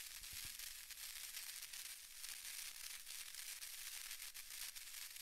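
Faint surface noise of a gramophone record: a steady, thin hiss with frequent small crackles and pops, and no music.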